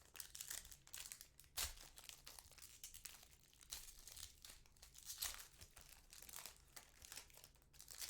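Foil trading-card pack wrapper crinkling and tearing as it is opened by hand, in a run of short, uneven crackles.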